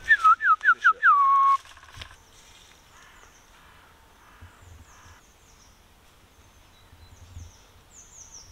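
A loud whistled phrase of four short falling notes and one longer falling note that levels off, then small woodland birds chirping faintly with short, high, falling calls.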